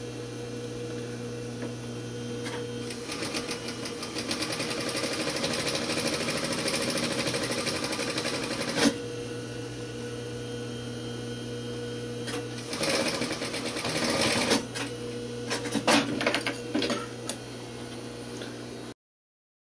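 Industrial sewing machine stitching a seam through canvas in runs: a fast, dense run of stitches for about six seconds, a steady motor hum between runs, then a shorter run. A few sharp clicks follow near the end.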